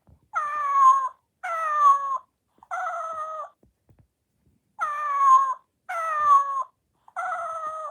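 Robotic plush kitten's speaker playing recorded cat meows: six meows, each sliding down in pitch, in two groups of three. This is the "Nago" voice it gives when rubbed ten times in a continuous stroke.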